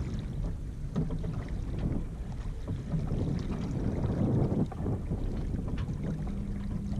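Wind buffeting the microphone over water washing along the hull of a Yamaha 24 sailboat moving slowly under sail, with a faint steady low hum coming in near the end.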